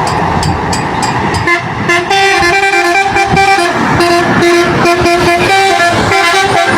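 Basuri telolet musical horn on a truck playing a quick tune of stepped notes, starting about a second and a half in, over road and engine noise.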